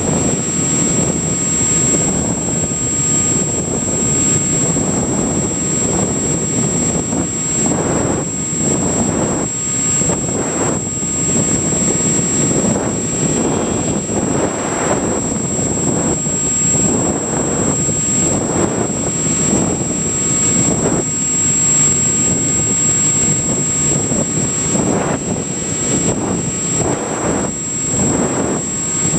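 Multiplex EasyStar electric foam model plane in flight, heard from on board: steady rushing air noise that swells in gusts, with the electric pusher motor running and a constant thin high whine over it.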